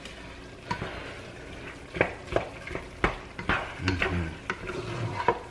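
A spoon stirring noodles in a cooking pot on the stove, with repeated scrapes and clinks against the pot's sides over a steady sizzle from the pot.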